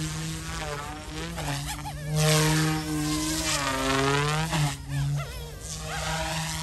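YXZNRC F280 RC helicopter's brushless direct-drive main and tail rotors buzzing in flight, the pitch wavering as it manoeuvres. It grows louder about two seconds in as it passes closer.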